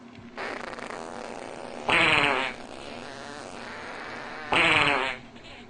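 A cat growling with a steady low rasp, rising twice into louder, wavering yowls.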